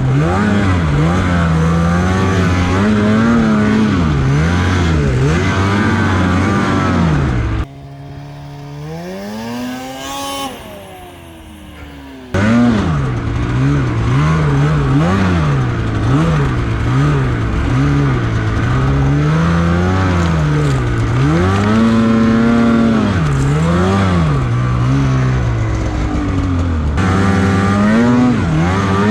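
Snowmobile engine revving up and down over and over as the throttle is worked while riding in deep snow. About eight seconds in it drops to a quieter engine sound with one slow rise in pitch for about four seconds, then the loud, constantly changing revving comes back.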